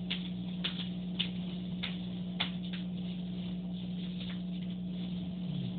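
A steady low hum with a scattering of light, irregular clicks over it.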